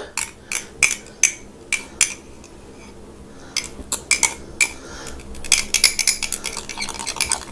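A metal spoon clinking and scraping against a white ceramic cup and mixing bowl while she scrapes out and mixes the batter. The taps are spaced out at first, pause briefly, then come quickly in a dense run in the second half.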